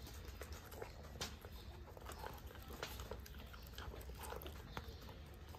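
Puppy eating from a pile of cooked rice mixed with dry dog kibble: faint, irregular chewing and small crunching clicks.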